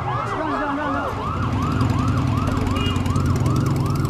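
Police car siren sounding in fast, evenly repeating rising-and-falling whoops, about three a second. From about a second in, a low engine rumble runs underneath.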